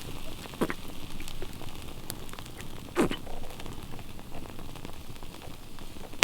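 Campfire crackling with scattered sharp pops, the loudest about a second in and again about halfway, over the faint sizzle of hamburger patties cooking on a grill above it.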